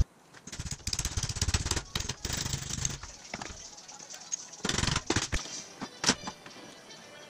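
A motor-driven hand tool running in two bursts with a fast rattle: a longer one of about two and a half seconds, then a shorter one near the five-second mark.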